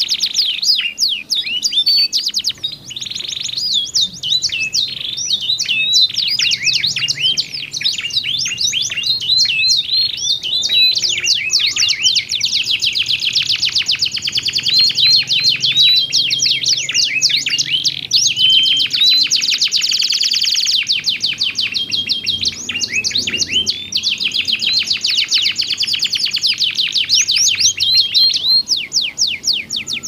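Two domestic canaries in full song, answering each other with different voices: unbroken high warbling made of long, very rapid trills and rolls and quick gliding notes.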